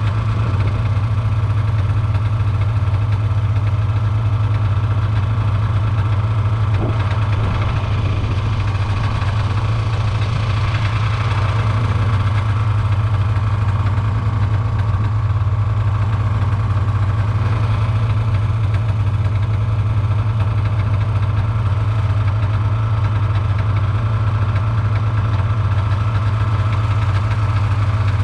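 Snowmobile engine running steadily with a constant low hum, holding the same pitch and level throughout.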